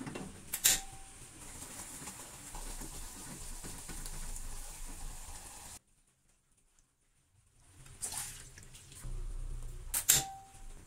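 Coconut milk cooking in a pan over a gas burner: a steady simmering hiss, broken off briefly in the middle. A sharp metal clink with a short ring comes near the start and again near the end.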